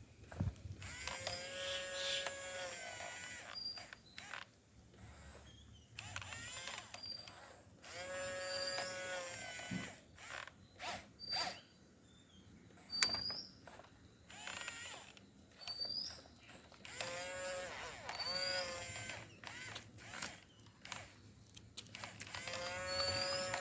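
Small electric motors and gearing of a radio-controlled construction model whining in repeated bursts of a second or two, the pitch sliding up and down as the machine moves. Sharp clicks and creaks fall between the bursts.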